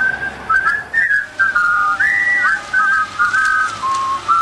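A person whistling a tune: a single melodic line of short held notes joined by quick slides up and down.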